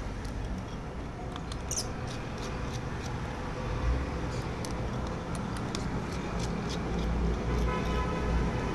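Small scattered clicks and scratches from handling the opened smartphone's frame and internals, over a steady low background rumble.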